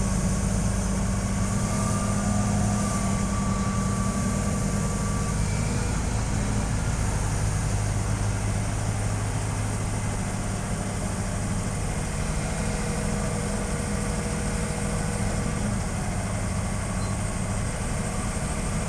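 Heavy diesel engine running steadily at an even, unchanging pitch, without revving.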